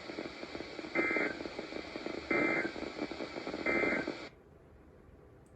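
Emergency Alert System end-of-message data tones heard over weather radio: three short, buzzy, warbling bursts about 1.3 s apart over steady receiver hiss, signalling that the alert has ended. About four seconds in, the hiss cuts off suddenly as the broadcast audio drops.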